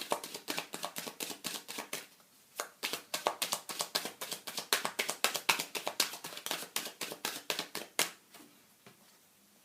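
A deck of tarot cards being shuffled by hand: a rapid run of crisp card slaps and clicks, with a brief pause about two seconds in, stopping about eight seconds in.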